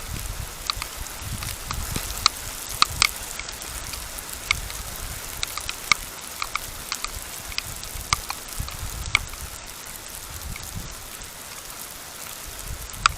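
Rain falling, with scattered drops ticking sharply and irregularly over a steady hiss.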